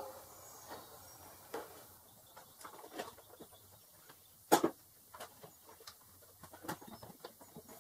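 Faint, scattered clicks and light knocks of hand work with a screwdriver on a hose clamp and an ATV's plastic air filter box, with one sharper click about four and a half seconds in.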